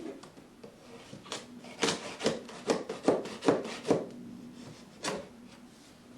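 Knife slicing through cardboard and packing tape on a shipping box. It makes a run of short scraping strokes, about two or three a second, then one more stroke near the end.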